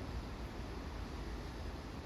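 Steady ambient noise with a low rumble, even and unbroken, with no distinct events.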